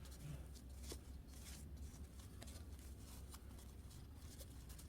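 Faint rustling and light clicking of small doll clothes being handled, over a low steady hum.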